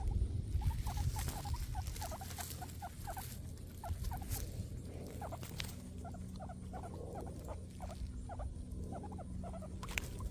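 Guinea pigs eating grass, chewing with sharp crunchy clicks, while giving short low squeaks several times a second.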